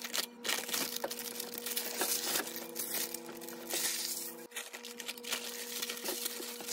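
Parchment paper crinkling and rustling as it is peeled off freshly baked loaves of bread. Light clinks of metal loaf pans against a wire cooling rack are heard along with it.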